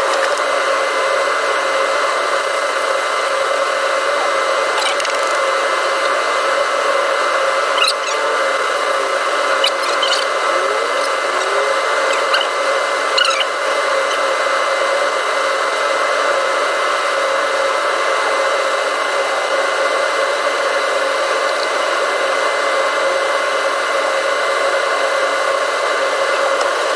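Carrier package air-conditioning unit running: a steady whirring of its fan and machinery with a constant hum of several tones. A few light clicks and taps come in the first half.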